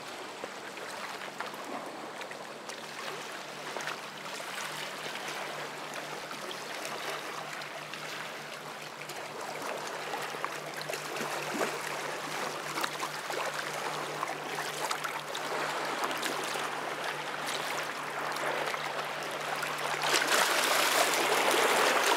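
Shallow river water washing and lapping over shoreline rocks, louder and splashier near the end, with a faint steady low hum underneath.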